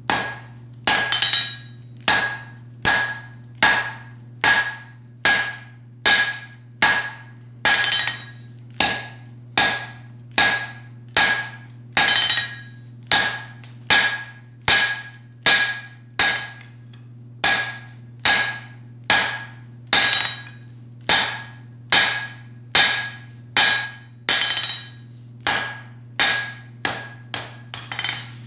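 Blacksmith's hand hammer striking a hot steel bar on the anvil in a steady run of blows, about three every two seconds, each one ringing off the anvil, over a steady low hum. The blows are forging the notches of one half of a pair of blacksmith tongs.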